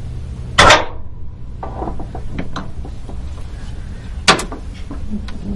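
Chain hoist lowering an electric motor into a car's engine bay: chain links clinking and ratcheting, with two sharp metal clanks about half a second in and near four seconds.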